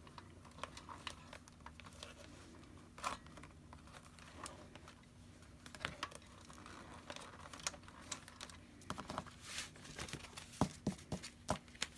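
Hole-punched paper sheets being handled and slipped onto a metal wire binding comb: faint paper rustling with scattered light clicks and taps, which come more often near the end.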